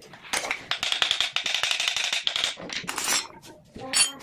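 Metal tools and parts clattering: a fast run of metallic clicks and rattling for about two seconds, then a few loose clicks and a short ringing clink near the end.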